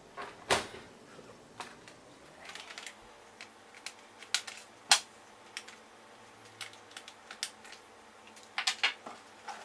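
Scattered sharp plastic clicks and taps from a laptop being handled as its power cord and battery are unplugged, with one louder click about half a second in and another about five seconds in.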